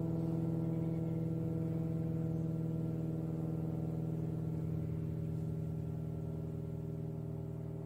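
Propeller airplane droning overhead, a steady pitched engine hum with a fast flutter, slowly fading as it moves away.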